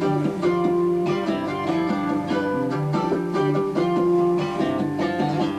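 Guitar music from a radio: a song with plucked and strummed guitar playing.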